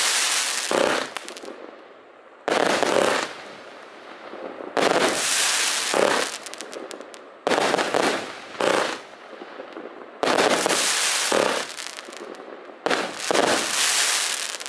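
Vulcan Pyrotechnics 'Intense' firework barrage firing volleys that burst into dense crackle. A new volley begins sharply about every two and a half seconds, and each one crackles for a second or so before fading.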